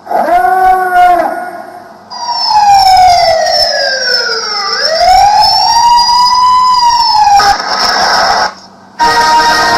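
Recorded siren sounds played back from a tape recorder: a short wailing tone, then a siren that falls in pitch for about two seconds, rises again and holds high. A harsher noisy stretch follows, breaks off for a moment, and another many-toned alarm sound starts near the end.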